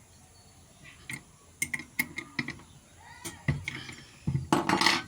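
Irregular sharp clicks and knocks of hard parts being handled, with a quick cluster of clattering near the end.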